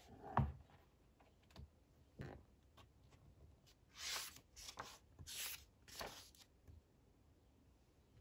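A soft knock about half a second in, then a few brief rustling, scraping handling sounds of small objects being moved.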